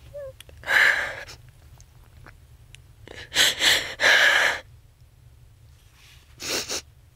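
A young woman crying: four breathy sobbing breaths and sniffs, the two loudest close together about three and a half seconds in.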